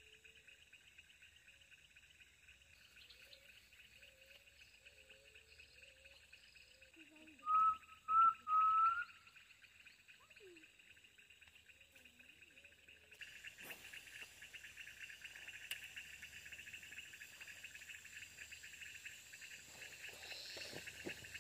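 Steady chorus of insects, a constant high-pitched buzz, which steps louder about 13 seconds in. About 8 seconds in come three short, loud calls that each rise in pitch, with faint low warbling calls before them.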